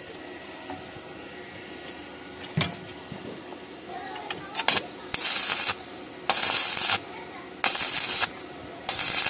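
Stick-welding arc crackling in four short bursts of hiss, about half a second each, starting about five seconds in: short welds joining a steel patch plate onto a rust-broken car chassis rail. Before them come a single metallic knock and a few light clicks.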